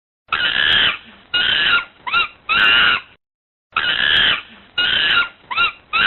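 Animal calls: a group of four short calls, the third very brief with a pitch that rises and falls, then after a pause of about half a second the same four calls again.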